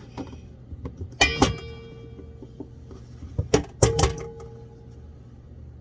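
Kitchen knife chopping potato on a cutting board: two clusters of sharp knocks, about a second in and again at three and a half seconds, each leaving a short ringing tone as it dies away.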